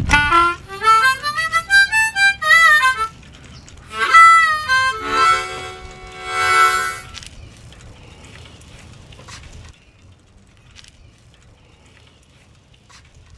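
Harmonica playing quick runs of notes that climb and fall, then a full held chord, dying away about seven seconds in.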